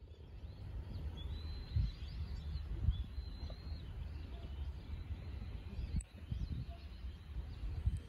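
Outdoor ambience: small birds chirping in short rising and falling calls, over a steady low rumble with a few soft thumps.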